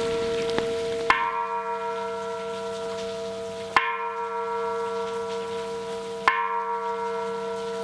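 A bell struck three times, about two and a half seconds apart, each strike ringing on into the next.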